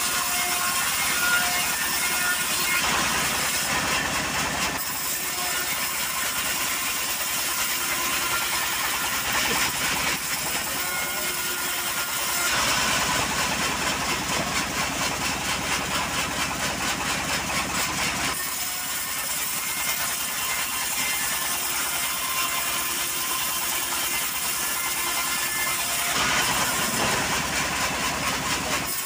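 Homemade band sawmill running, its blade sawing through johar (kayu hitam) timber over the steady drone of the machine's drive. The cut grows harder and pulses for several seconds in the middle.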